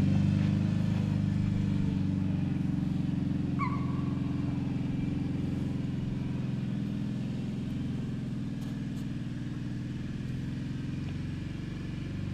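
Small quad (ATV) engine running steadily at low revs, gradually getting quieter.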